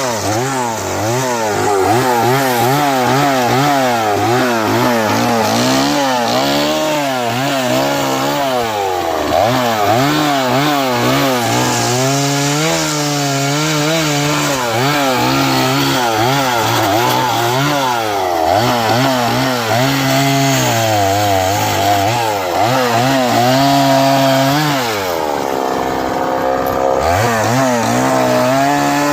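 Chainsaw engine running under load as it cuts through a big tree, its pitch constantly wavering up and down as the chain bites into the wood. Near the end the engine drops to a lower pitch for about two seconds, then revs back up.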